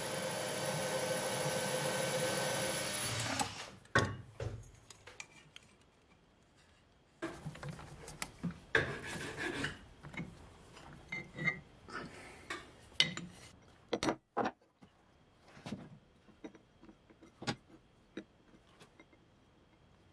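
A homemade metal lathe running steadily with a whine, then switched off and spinning down about three seconds in. Knocks, scraping and rubbing of metal parts follow, with light clicks and taps of a hand tool on the metal flange.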